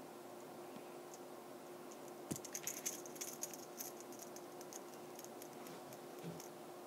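Faint room tone with a steady low hum; from about two seconds in comes a quick run of light taps and clicks on a tablet touchscreen while drawing.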